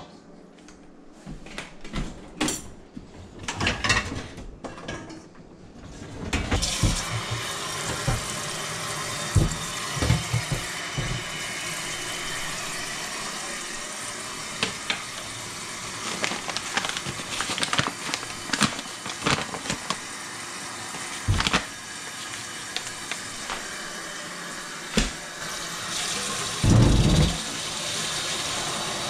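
Knocks and clatter of a stainless steel mixing bowl and other kitchen items, then a steady rush of water from a kitchen faucet with clanks of metal cookware and a heavy thump near the end.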